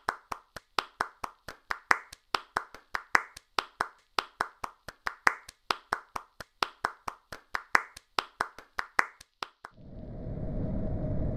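A single person clapping steadily, about four claps a second, each clap sharp and separate with silence between. Near the end the clapping stops and a low rumble fades in.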